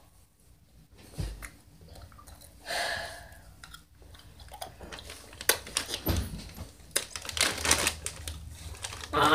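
Scattered taps, clicks and rustles of handling close to a laptop's microphone, coming thicker in the second half, with a brief breathy sound about three seconds in.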